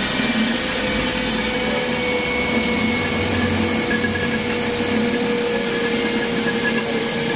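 Beaver 50 electric pipe threading machine running steadily, its motor and gear drive giving an even whine with a steady hum. It is running normally on its newly fabricated replacement spur gear.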